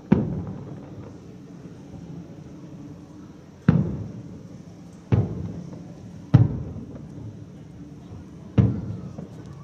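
Aerial firework shells bursting: five sharp booms at uneven intervals, each trailing off in a short rolling echo.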